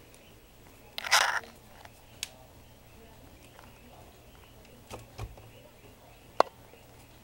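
Cat pawing and clawing at a closed cupboard door to pry it open: a short scratching scrape about a second in, then scattered knocks and clicks of the door against its frame, the sharpest one near the end.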